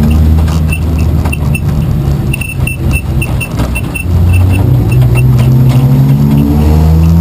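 Race car engine running hard, easing off with light rattling about two to four seconds in, then accelerating again, its pitch climbing steadily.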